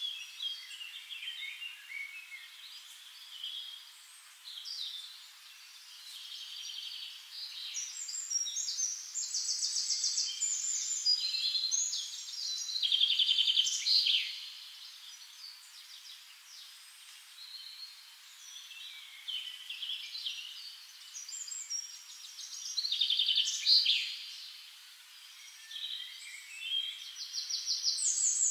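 Birds singing, a mix of high-pitched chirps and fast trills, louder for a few seconds near the middle and again near the end.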